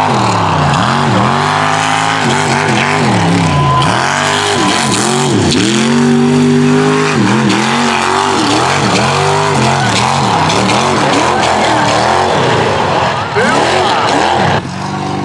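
A lifted mud truck's engine revving hard, its pitch climbing and dropping over and over as the throttle is worked. It turns suddenly quieter just before the end.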